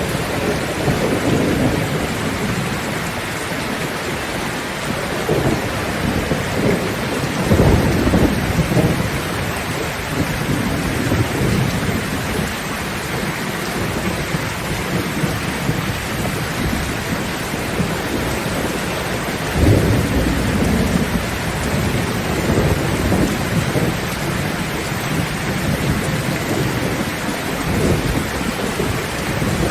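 Steady rain drumming on a zinc roof, with thunder rumbling several times, loudest about eight seconds in and again at about twenty seconds.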